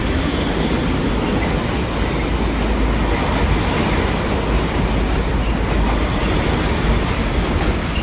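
Electric regional passenger train running past on a steel truss railway bridge: a loud, steady rumble of wheels on rails.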